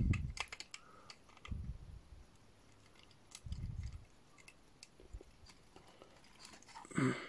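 Scattered light clicks and taps of small plastic toy parts being handled and fitted, with a few dull low bumps.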